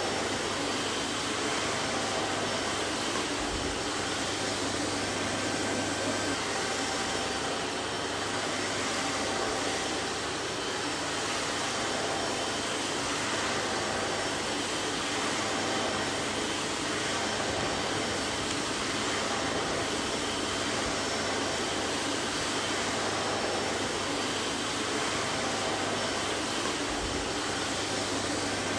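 Vacuum cleaner motor running steadily: a constant airy rush with a low hum underneath.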